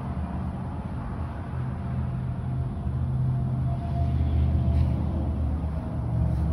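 A motor vehicle driving along: a steady low engine hum with road noise, swelling slightly in level about halfway through.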